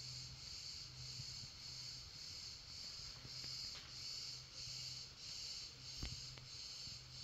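Faint room tone carrying a high, pulsing insect chorus from outside that swells and fades about twice a second, over a low hum that comes and goes. A few soft taps sound, one about six seconds in.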